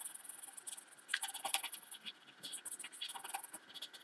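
Faint scratching of a colouring tool on paper, quick back-and-forth strokes in several short runs with brief pauses between them, as the wings of a drawn bird are coloured in.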